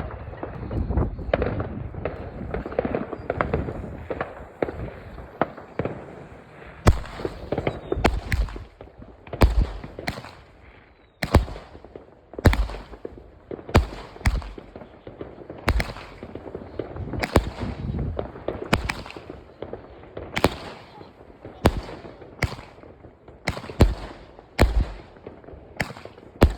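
Fireworks going off: a dense crackling rumble of many shells at first, then from about seven seconds in a string of sharp, loud bangs, roughly one a second.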